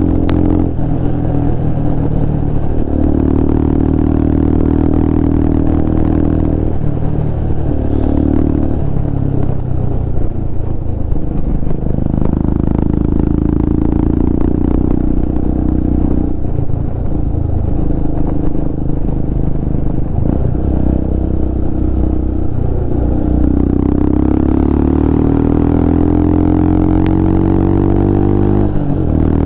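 Royal Enfield Himalayan's 411 cc single-cylinder engine running through a Red Rooster aftermarket exhaust with the dB killer removed, while riding. The loud exhaust note holds steady, dips briefly several times as the throttle eases and gears change, and near the end rises in pitch for several seconds under acceleration before dropping again.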